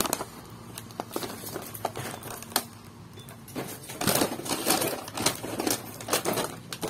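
Boxed toy packaging being handled in a cardboard carton: plastic blister packs and card boxes crinkling, with scattered light knocks and taps, busiest about four seconds in.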